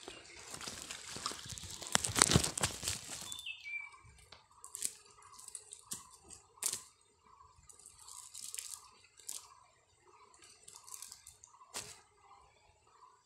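A fishing net rustling and crunching against dry leaves as fish are picked out of it by hand. There is a louder burst of noise about two seconds in, then scattered short rustles and clicks.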